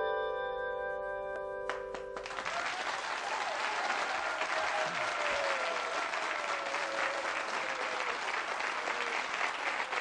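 Tuned handchimes ringing out a final held chord that is cut off about two seconds in, followed by a studio audience applauding.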